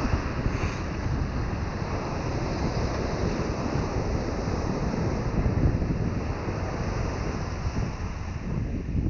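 Ocean surf breaking and washing up the beach in foamy sheets, with wind buffeting the microphone.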